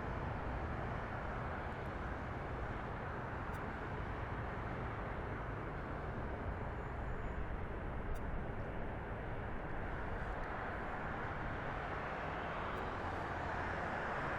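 Steady, distant jet airliner engine noise, swelling slightly in the second half.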